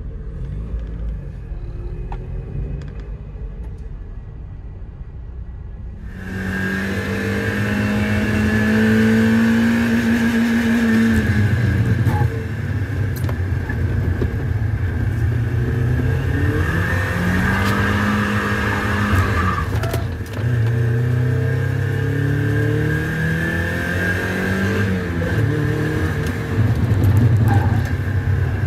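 A 1999 Mazda MX-5 Miata (NB) four-cylinder engine heard from inside the cabin. It starts as a low rumble at slow speed, then is driven hard on track, the revs rising and falling, with sudden drops in pitch about twelve and twenty seconds in.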